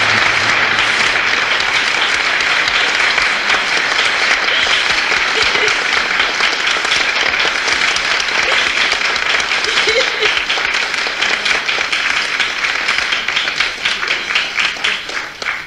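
Audience applauding after a song, dense and steady, thinning out into scattered claps and fading near the end.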